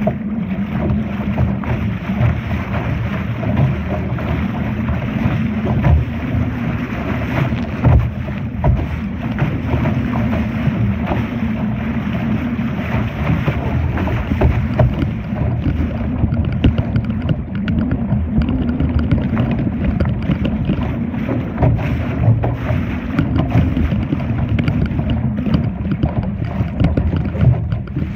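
Wind buffeting the microphone over water splashing against the hull of a Laser sailing dinghy under way, with many small knocks and slaps.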